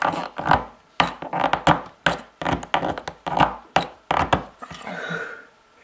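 3D-printed plastic pump drill being pumped to bore a hole in a block of wood. Each stroke starts with a sharp knock and is followed by a noisy whir as the bit spins, about two strokes a second. The strokes stop about five seconds in.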